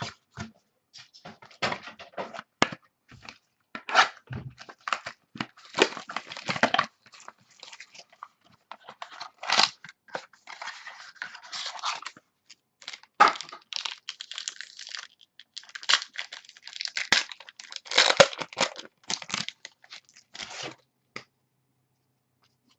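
Packs of 2011 Precision football cards being torn open by hand: irregular tearing, crinkling and rustling of the pack wrappers, with cards handled in between.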